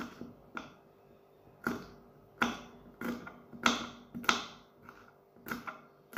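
Kitchen knife slicing green chillies on a wooden chopping board: a run of sharp chops against the board, irregularly spaced, about ten in all.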